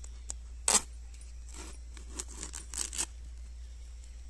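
Tape and paper being ripped off a cardboard parcel: a string of short tearing rips, the loudest about three-quarters of a second in and several more between about one and a half and three seconds in.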